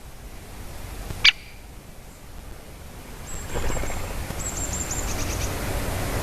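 Great spotted woodpecker giving a single sharp "kik" call about a second in. From about halfway there is a faint high twittering of a small bird, over a steady rushing background that grows louder.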